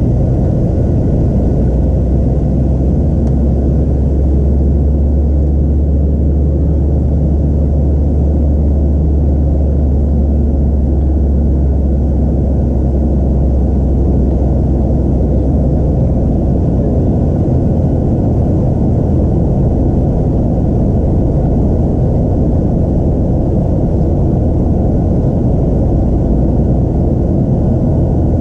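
Inside the cabin of a Boeing 737-700 climbing after take-off: its CFM56-7B turbofans and the airflow make a steady, loud low rumble. A deep drone is heaviest in the first half and eases somewhat after, over a faint steady whine.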